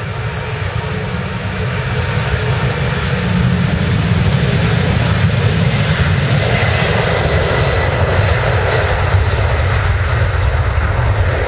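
Airbus A300B4-203F freighter's twin General Electric CF6-50 turbofans at take-off thrust during the take-off roll: loud jet engine noise with a deep rumble, growing louder over the first few seconds as the aircraft passes, then holding steady.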